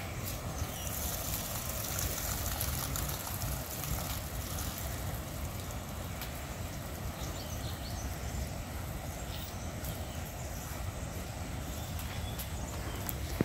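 Steady outdoor background noise: an even hiss over a low rumble, with a few faint clicks.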